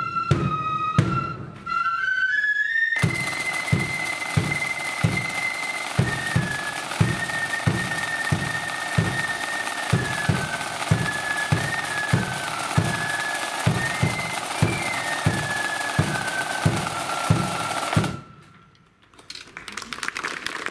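Blood-and-thunder flute band playing a march: flutes carry a stepping melody over a steady bass drum beat about twice a second, and about three seconds in the side drums come in with a dense rattle. The music stops suddenly a couple of seconds before the end.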